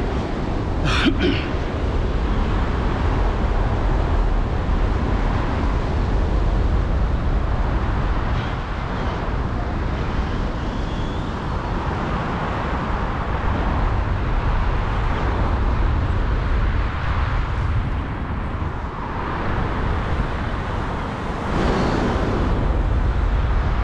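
Wind rushing over a GoPro action camera's microphone in flight under a paraglider: a steady, rumbling buffet with no engine or voice in it. A sharp click sounds about a second in, and the wind swells louder near the end.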